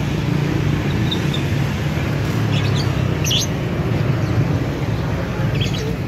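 Caged songbirds chirping in short high bursts: a brief chirp about a second in, a cluster in the middle and another near the end, over a steady low rumble of motor traffic.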